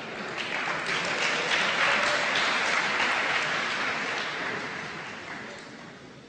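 Audience applauding in a hall, swelling over the first couple of seconds and dying away near the end.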